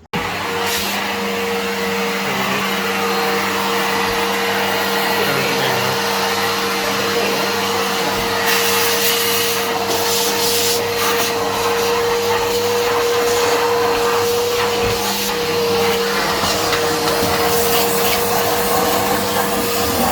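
Goodmans Turbo Max 700-watt upright vacuum cleaner running: a steady rush of air with a constant motor whine. The hiss brightens and varies between about 8 and 11 seconds in.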